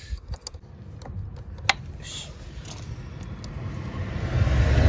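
Sharp metal clicks as a tractor battery terminal is worked loose with a tool, with one loud click just under two seconds in. A low rumble swells near the end.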